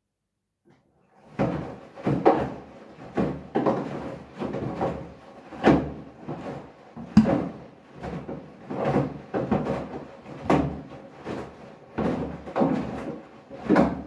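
Hoover front-loading washing machine tumbling a wet bath mat and mops in water: a string of heavy thuds and sloshes, roughly one to two a second, as the load drops in the turning drum. The sound starts about a second in.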